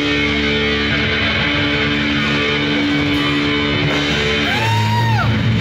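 Live rock band's electric guitar holding long ringing chords, with one sliding note that rises and then falls near the end.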